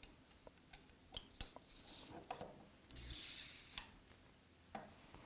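Thin stainless steel strip being pushed by hand into the groove of a magnetic DRO scale body: a few light clicks, then a faint scraping rub of about a second midway, and a small knock near the end.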